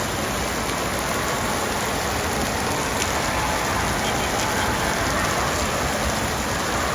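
Steady rush of splashing and falling water with a hum of distant voices: indoor water park ambience.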